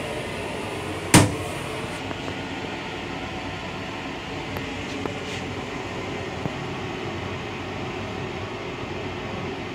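Steady running noise of a Long Island Rail Road M9 railcar, with one sharp, loud clack about a second in as the plastic toilet seat is lowered onto the bowl.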